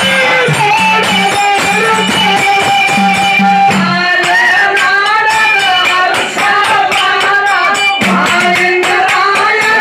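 Live Kannada Dollina pada folk song: a male voice singing over steady held tones, with rhythmic drum strokes and jingling cymbals throughout.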